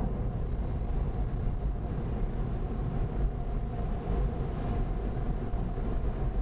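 Automatic car wash machinery, most likely the overhead dryer blowers, running with a steady rumble and hiss, heard from inside the car.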